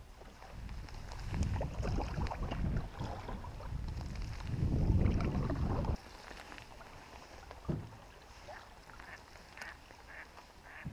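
Canoe paddling on a calm river, with wind rumbling over the GoPro microphone for the first six seconds before it cuts off suddenly. After that come quieter water sounds, a single knock a couple of seconds later, and a run of short calls near the end.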